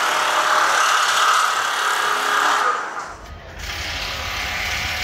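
Steady noise of construction machinery and tools at a roller-coaster build site, with faint shifting engine tones. About three seconds in it drops away and a low rumble takes over.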